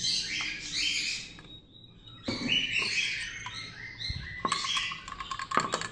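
Birds chirping in quick repeated high calls, with a metal spoon clinking and scraping in a plastic cup as water is stirred into hand-feeding formula.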